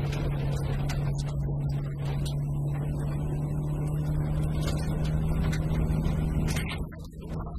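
VW Golf rally car's engine running hard at steady revs along a gravel stage, with tyre noise and the clicks of gravel striking the car. The sound dips briefly near the end.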